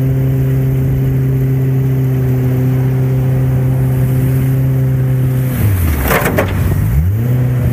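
Mercury outboard jet motor pushing a jon boat at speed, running at a steady pitch. About five and a half seconds in, the engine drops sharply in pitch as the throttle comes off, a brief rush of noise follows, and near the end it climbs back up to cruising pitch.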